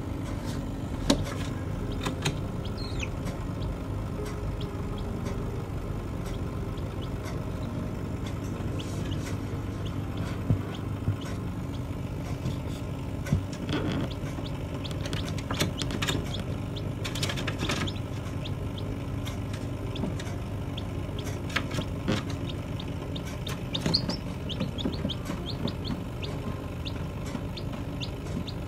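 Steady hum of a computer fan running inside a still-air incubator, with a few faint peeps from newly hatched chicks and occasional sharp clicks.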